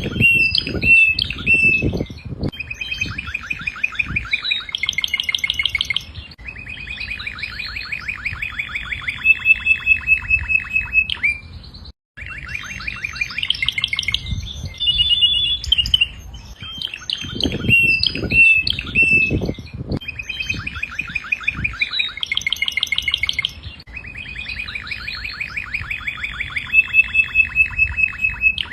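Domestic canary singing long rapid trills and rolling phrases, high and bright, with a short break near the middle. A few low thuds come through near the start and again about two-thirds of the way in.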